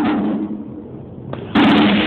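Military band drums playing: loud drumming that breaks off sharply just after the start and strikes up again about a second and a half in.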